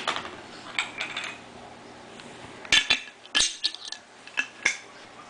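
A string of sharp clinks and knocks of a utensil and a dish on a wooden table, loudest right at the start and again in a cluster from about two and a half seconds in.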